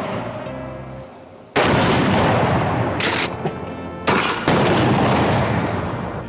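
Shotgun blasts fired at steel barrel targets: a loud shot about a second and a half in, then more shots near 3 and 4 seconds in, each with a long echoing tail.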